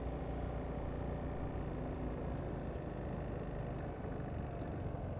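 Piaggio MP3 Yourban maxi-scooter's engine running steadily at low speed as it rides, a low even hum with a faint tone that fades about halfway through.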